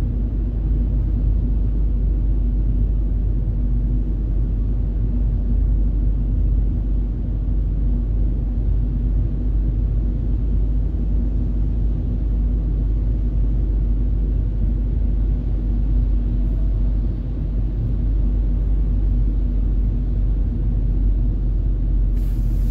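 Steady low rumble of a car driving on a wet motorway, heard inside the cabin: tyre and engine noise with a faint steady hum.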